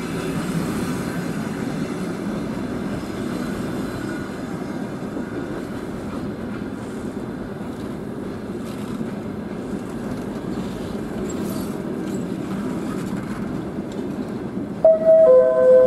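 Passenger coaches rolling past at close range, their wheels running steadily over the rails. Near the end a loud two-note tone sounds for about a second.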